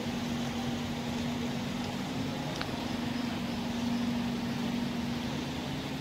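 Scania K320 IA articulated bus's engine running with a steady drone as the bus creeps forward at low speed, with a light click about two and a half seconds in.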